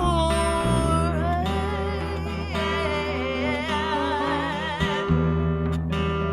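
A woman singing a wordless, held melodic line with vibrato over guitar accompaniment, in a live acoustic soul performance.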